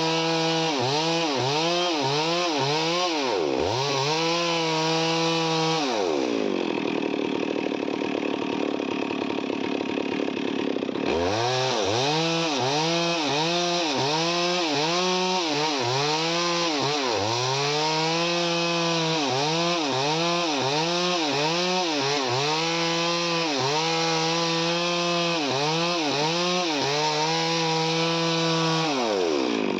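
Chainsaw cutting wood at high revs, its engine pitch dipping and recovering about twice a second as the chain bites. About five seconds in the engine note falls away, leaving a steady rasping hiss. The revs climb back about eleven seconds in and the cutting resumes.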